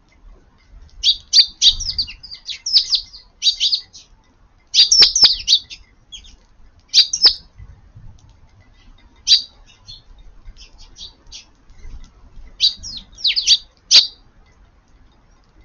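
Eurasian tree sparrows chirping: quick clusters of short, high chirps with pauses of a second or two between them.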